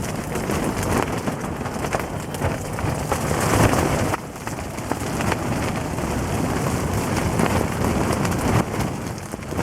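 Gale-force wind buffeting a dome ice-fishing tent, heard from inside: the fabric flaps and rattles in gusts, easing briefly about four seconds in.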